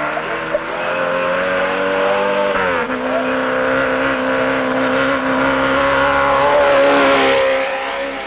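Off-road race vehicle's engine running hard as it comes along the dirt track, its pitch dropping briefly about three seconds in, then holding steady. It is loudest just before the end, then eases off.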